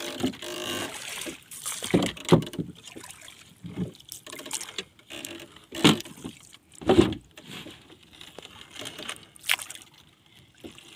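A wet fishing longline being hauled by hand over the side of a wooden boat: water trickling and dripping off the line, broken by several louder knocks about two, six and seven seconds in.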